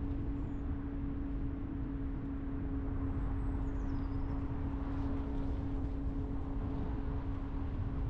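Car being driven at a steady pace: low, even road and engine rumble with a constant drone.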